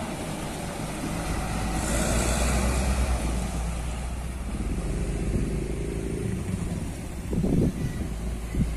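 Diesel engine of a heavy three-axle box truck running as it drives past close by, a steady low rumble, with a brief hiss about two seconds in.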